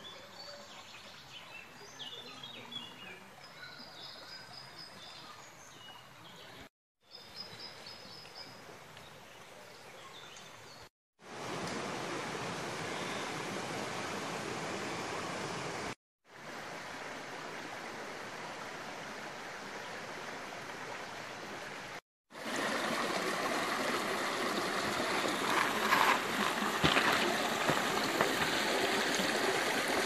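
Creek water running over stones, heard in several short clips separated by brief silent cuts, the flow much louder in the second half. Birds chirp over the quieter water in the first few seconds.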